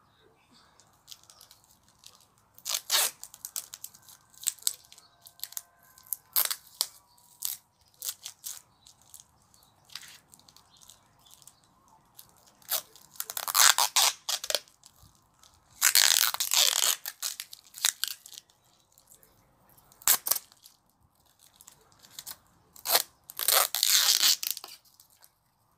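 Clear sticky tape pulled off the roll in several separate rips and wrapped around a hand to hold a toothbrush, with handling noise between the rips.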